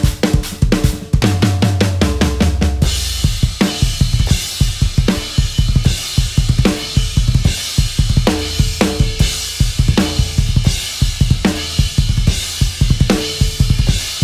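DW acoustic drum kit played in a fast solo: rapid bass drum pedal strokes under snare and tom hits, with a ringing cymbal wash over the beats from about three seconds in.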